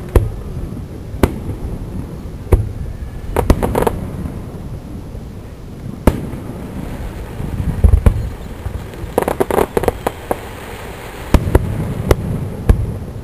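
Aerial fireworks bursting: an irregular series of sharp bangs over low rumbling booms, with a cluster of rapid crackling pops about a third of the way in and another about three quarters of the way in.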